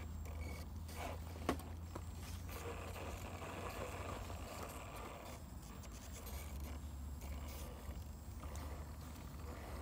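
Radio-controlled scale rock crawler climbing a rock slab: its electric motor and gearbox whirring and its tyres scraping on the stone, with one sharp click about one and a half seconds in.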